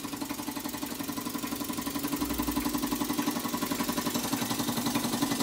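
Small model steam engine running steadily on steam, its exhaust beating in a quick, even rhythm of many strokes a second over a steady hiss.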